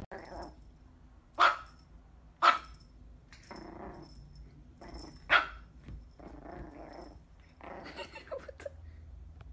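Small puppy giving three sharp, high yaps, about a second and a half in, about two and a half seconds in, and about five seconds in, with quieter growling in between.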